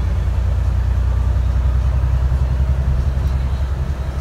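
Alexander Dennis Enviro 400 MMC double-decker bus running, heard from on board: a steady, deep engine drone.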